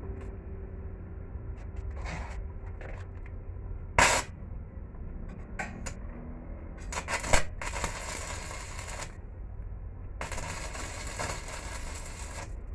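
Metalworking on scrap steel: two sharp metal knocks, then two bursts of steady crackling hiss lasting a second and a half to two seconds.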